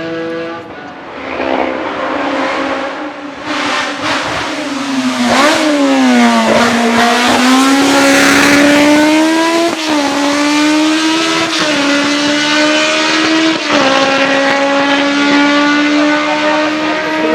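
Race car engine at full throttle on a hillclimb run, its note climbing and dropping back at several gear changes as the car comes up the road. It is loudest partway through as it passes.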